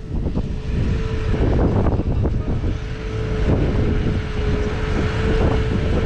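New Holland T7.315HD tractor's six-cylinder diesel running under load while pulling a seven-furrow plough, a deep engine rumble with a steady whine over it, growing louder over the first second or so as the tractor comes closer.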